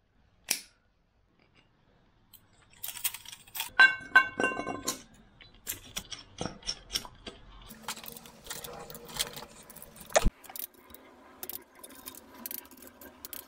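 Small metal parts and hand tools clinking and rattling as nuts, sockets and exhaust-manifold hardware are handled and fitted. A bright ringing clink of metal comes about four seconds in, and a single sharp click at about ten seconds.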